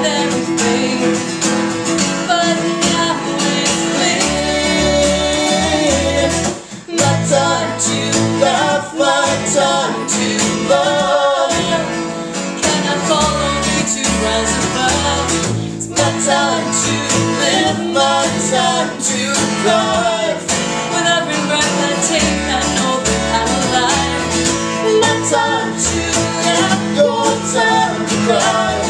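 Live acoustic band: a woman singing over a strummed acoustic guitar and a plucked upright double bass, with a brief drop in loudness about seven seconds in.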